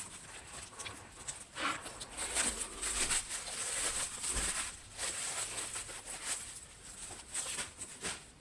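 Leather handbags being handled and opened by hand: rustling of the leather with scattered clicks from the flap and metal hardware, busiest in the middle and ending with a sharp click.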